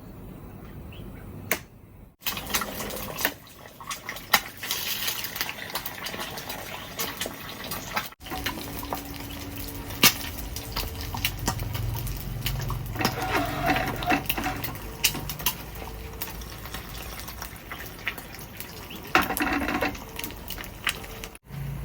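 Water running and splashing, with scattered light clinks and knocks, heard in several short edited stretches.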